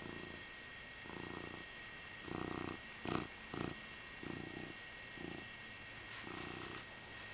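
Tuxedo cat purring close to the microphone, the purr swelling and fading with each breath about once a second. About three seconds in come a few louder brushing knocks as the cat rubs against the camera.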